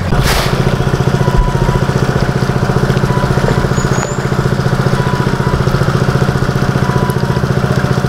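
A small engine running steadily, with a fast, even beat.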